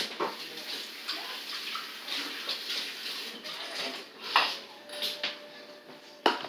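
Running water, with two sharp knocks, the louder one near the end.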